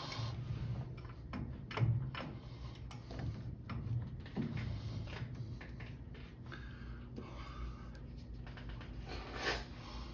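Metal tooling clinking and knocking as a knurling tool is fitted into a metal lathe's tool post, a few separate knocks over a steady low hum.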